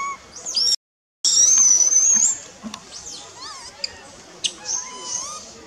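Young macaque squealing: a long, high, rising squeal lasting about a second, followed by shorter high squeaks. The audio drops out to dead silence briefly about a second in.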